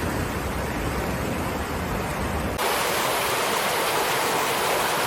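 Steady rushing noise of flowing water, switching abruptly about two and a half seconds in to a brighter, hissier rush with less rumble.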